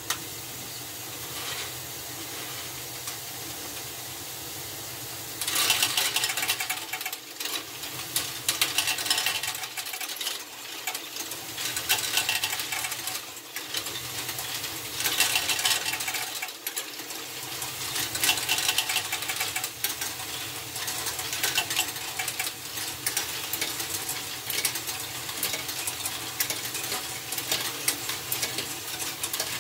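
LEGO Technic great ball contraption modules running: a steady whirr of electric motors and plastic gears, then from about five seconds in, dense clicking and rattling of small plastic balls moving through the modules, swelling in louder patches about every three seconds.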